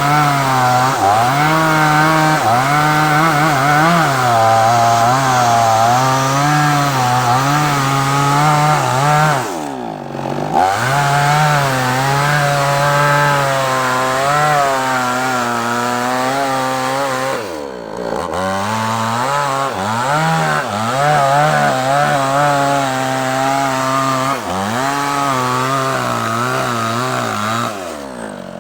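Chainsaw cutting through a large sengon log, its engine pitch wavering up and down under load. Twice the revs drop sharply and climb again, and near the end the saw falls back toward idle.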